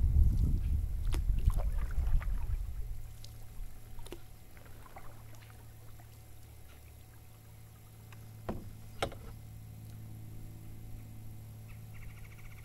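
Canoe being paddled on calm water: a low rumble for the first few seconds, then quieter gliding with a steady low hum. Two sharp knocks come about eight and nine seconds in, and a thin high steady tone starts near the end.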